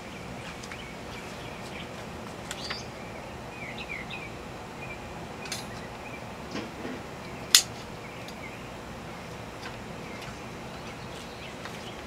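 Steady background hiss with a few small clicks and one sharp plastic click about seven and a half seconds in: a plastic side-release seat-belt buckle snapping shut. Faint short chirps between about two and five seconds in.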